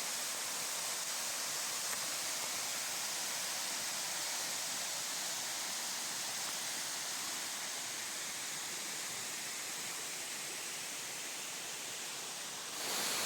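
Waterfall: a steady rush of falling water, stepping up a little near the end.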